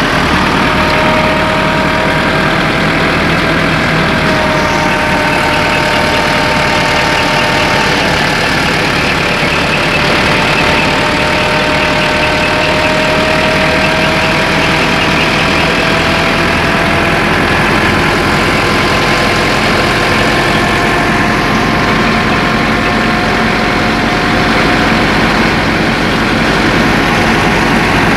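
Massey Ferguson 385 tractor's four-cylinder diesel engine running steadily while driving a wheat thresher through its PTO shaft, the thresher's drum and belts running with it. A faint, slowly wavering whine rides over the steady drone.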